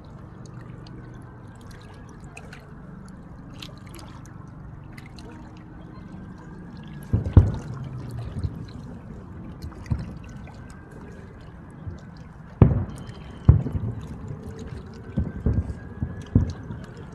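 Aerial fireworks shells bursting in sharp, distant booms: the first about seven seconds in, then more often toward the end, with faint long whistles before some of them. A steady low background murmur underlies it.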